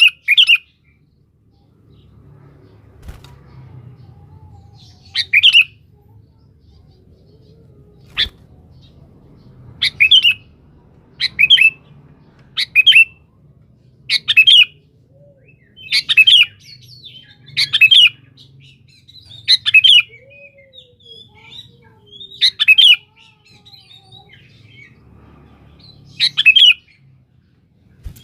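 Sooty-headed bulbul giving loud, short chirping call phrases over and over, one every second or two after a pause of a few seconds at the start. This is a bird in full voice calling out to a rival. A faint low hum runs underneath.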